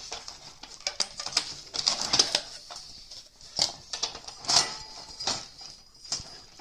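Cardboard packaging and metal antenna parts being handled: irregular rustling, crackling and light clicks and knocks, with a few louder knocks.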